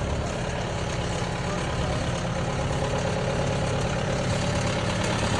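Diesel engine of a JCB 1CXT compact backhoe loader running steadily at a low, even speed.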